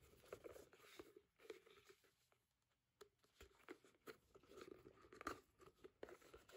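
Faint, irregular rustles and small clicks of leather being handled while hand stitching, with thread drawn through the stitching holes.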